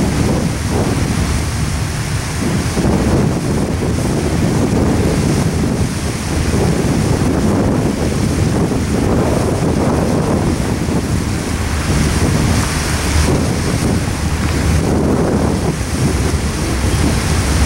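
Double-stack intermodal container cars rolling past over a bridge, a steady low rumble, mixed with gusty wind buffeting the microphone.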